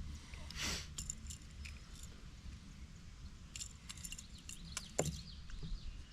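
A few scattered light metallic clinks and rattles of fishing pliers and hooks as a fish is being unhooked, over a low steady rumble.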